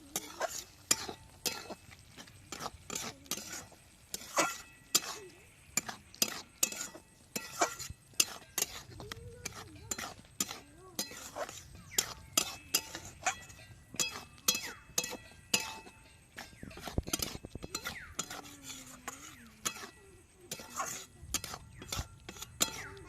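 Metal utensils clinking and scraping against cooking pots and plates as food is served out, in a long run of irregular sharp clinks.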